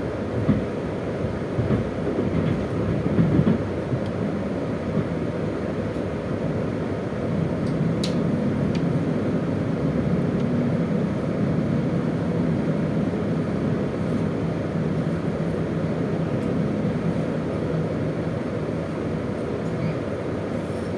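KiHa 201 series diesel railcar running, heard from inside the car: a steady low rumble of wheels on rails with a few sharp knocks in the first few seconds. From about seven seconds in, a steady low hum joins, the diesel engine under power.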